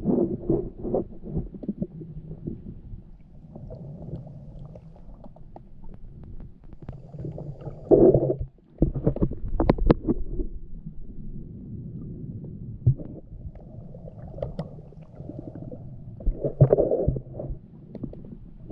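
Muffled underwater sound: low rumbling and gurgling with scattered knocks, swelling louder about eight seconds in and again near the end.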